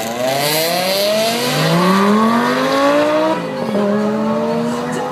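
A BMW M6 and a Lamborghini launching side by side in a drag race and accelerating hard away, the engine note climbing steadily. About three seconds in it drops sharply at a gear change, then climbs again.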